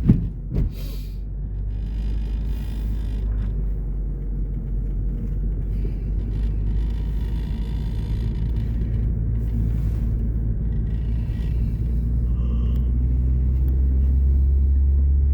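Steady low engine and road rumble heard inside a moving car, with a sharp knock right at the start and a softer one just after.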